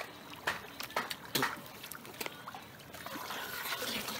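Water splashing and dribbling: a few short splashes in the first second and a half, then a steady trickle that grows a little louder near the end.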